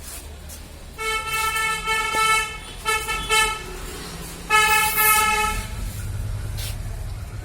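A vehicle horn honks three times, each at one steady pitch: a long toot, a short one, then another long one. The low rumble of traffic runs underneath and grows louder near the end.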